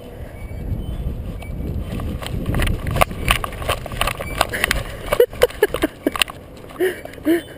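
Footsteps and knocks on the plank deck of a cable suspension footbridge, with a low rumble of wind and handling under them, the knocks thickest about three to five seconds in. In the last couple of seconds come several short, high yelps.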